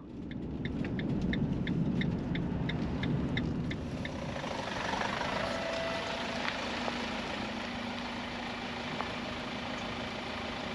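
A campervan's engine running at low speed as the van rolls in slowly over wet tarmac and pulls up. For the first four seconds a rapid, even ticking of about three to four ticks a second runs over it.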